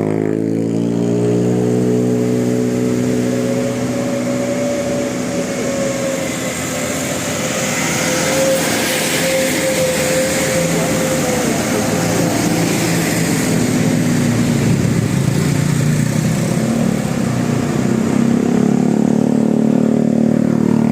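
A bus engine running steadily, its pitch drifting slowly with no horn melody. A hiss of road noise rises and falls about the middle.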